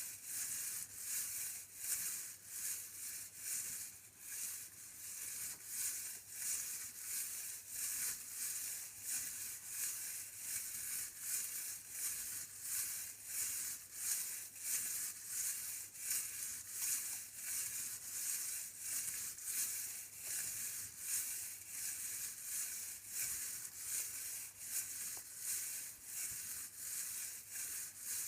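Rhythmic rattling noise repeating evenly about twice a second, bright and hissy with little low end.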